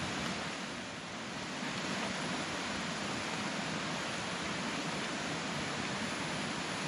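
Steady, even rushing hiss of outdoor background noise with no distinct events. It dips slightly about a second in.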